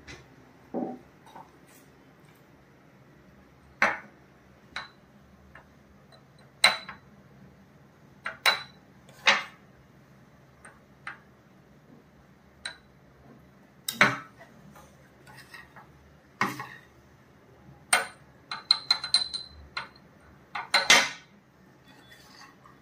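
A metal spoon clinks against glass shot glasses and a steel bowl while thick cream is scooped and spooned in. The taps are sharp and scattered, some with a short ring, with a quick run of them near the end.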